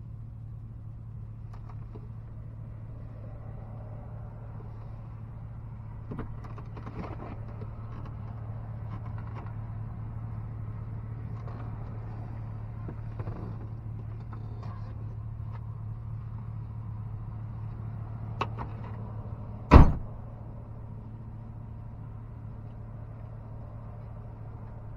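A truck engine idling steadily, heard from inside the cab, with faint scattered clicks and knocks. About two-thirds of the way through comes a small knock, then a single loud thud of a vehicle door being shut.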